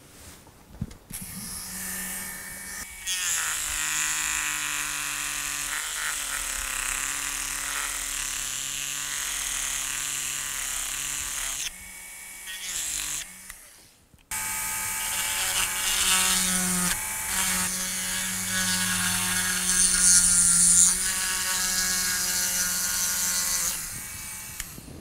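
Small corded handheld rotary tool running at high speed, its bit cutting into a wooden lure body to make the recess for the lead ballast. It runs for about ten seconds, stops briefly halfway through, then runs again for about ten more seconds.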